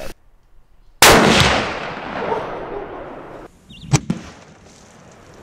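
A single rifle shot cracks about a second in and its echo trails off over about two seconds. A shorter sharp crack follows near the four-second mark.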